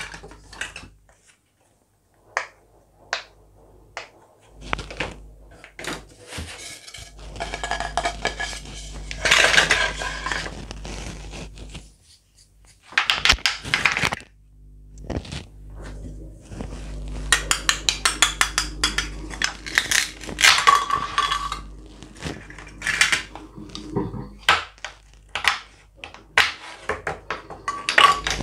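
Plastic toy fruits and vegetables clattering and clicking against each other and the table as they are handled, with knocks from a wooden toy knife and cutting board. The clicks come in irregular clusters, some in quick runs, with short quiet gaps between them.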